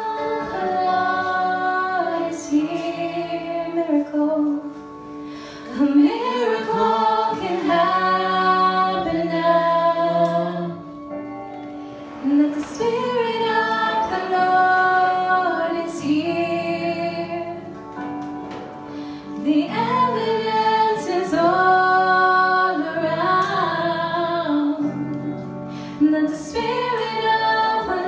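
Live worship band playing a song: women's voices sing sustained phrases over guitar accompaniment, with short instrumental pauses between the sung lines.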